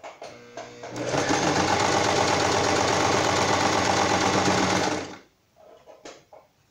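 Electric household sewing machine stitching a seam through patchwork fabric strips. It starts with a few slow stitches, runs at a steady speed for about four seconds, then stops, followed by a little light fabric handling near the end.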